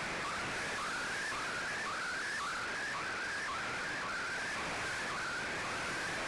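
Shortwave radio receiver playing a weak Shortwave Radiogram signal carrying an MFSK image transmission: a warbling tone that sweeps upward again and again, about twice a second, over a steady hiss of static.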